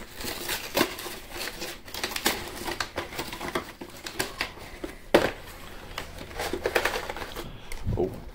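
Cardboard and plastic packaging of a Pokémon card collection box rustling and crinkling as it is opened and handled, with irregular clicks and one sharper knock about five seconds in.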